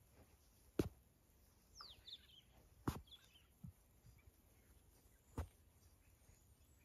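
Mostly quiet, broken by three sharp clicks spaced about two and a half seconds apart and one short, high bird chirp that falls in pitch a couple of seconds in.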